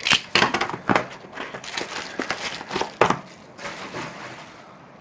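Handling noise of a small cardboard trading-card box and a plastic box cutter on a table: a quick run of sharp clicks, taps and plastic crackling, a firmer knock about three seconds in, then a soft rush.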